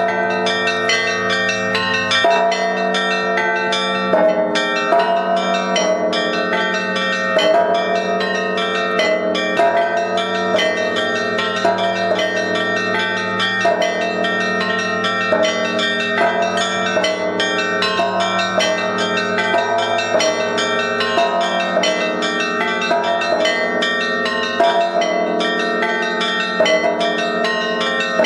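Russian Orthodox church bells rung together without a break: quick strikes of the small bells over the steady ringing of larger, deeper bells.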